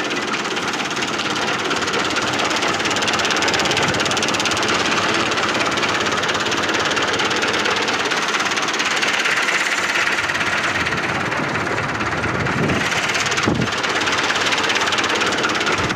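Massey Ferguson 640 tractor diesel engine running steadily under load while it drives a wheat thresher, a loud continuous mechanical din. There is one sharp click about three-quarters of the way through.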